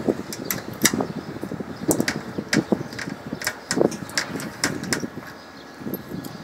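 Irregular sharp metallic clicks and taps, a few a second, from a hand tool working the fasteners of a metal equipment access panel, thinning out near the end.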